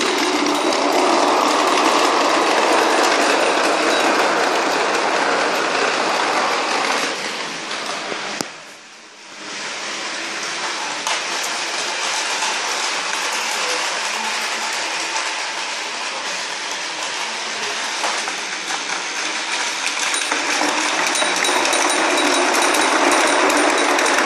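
Motorised Tomica toy train's small electric motor whirring steadily, with its wheels rattling on plastic track. The sound drops away for about a second roughly eight seconds in, then comes back and grows louder near the end as a train passes close by.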